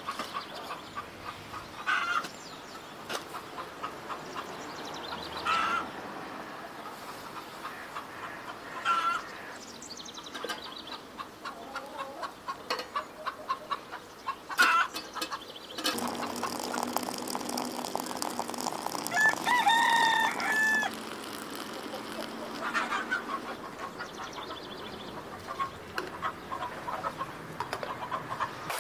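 Chickens clucking in short calls, with a rooster crowing once about twenty seconds in. From about sixteen seconds a steady rush of hot water runs from the tea urn's tap into a metal teapot.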